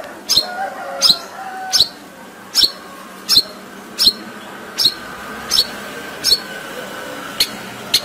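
Long-tailed shrike (cendet) in full song, giving a short, sharp, high call over and over, about one every three-quarters of a second.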